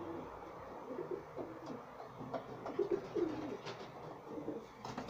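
Racing pigeons cooing in a loft, repeated low, wavering coos, with a few light sharp clicks among them.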